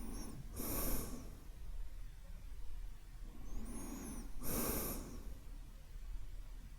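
A man breathing slowly and deeply: two long breaths about four seconds apart, each a soft rush of air, with a faint high whistle just before each.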